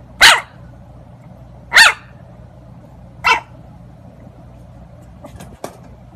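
A bulldog puppy gives three short, high barks about a second and a half apart, the third weaker than the first two. A few small clicks follow near the end.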